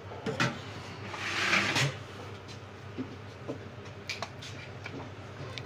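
Small tools and parts being handled on an electronics repair bench: scattered clicks and knocks, with a brief rush of hiss-like noise about a second and a half in, over a low steady hum.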